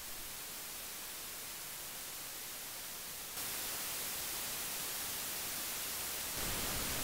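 Amplified noise floor of audio interface mic preamps, a steady hiss. It starts with the Lewitt CONNECT 6, and about three and a half seconds in switches to the louder hiss of the Steinberg UR22C. Near the end it steps up once more.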